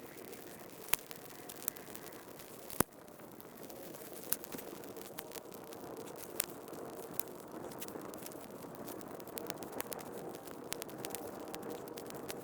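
Small kindling fire of dry sticks and bark crackling as it catches, with scattered snaps and pops, the loudest about three seconds in, over a steady hiss.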